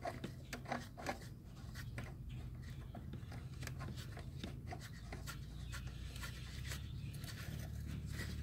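Faint clicks and metal rubbing from a power steering pulley puller being set and snugged onto the pulley by hand, over a low steady hum. The clicks are most frequent in the first couple of seconds.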